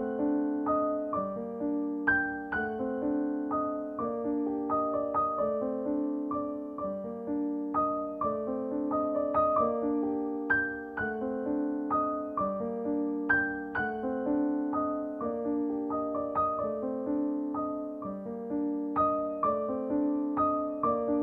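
Background piano music: a gentle melody of struck notes over chords that change about every second.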